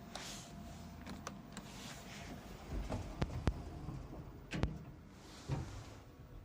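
Elevator car running with a low steady hum, with a few sharp clicks and knocks from the car's mechanism in the middle.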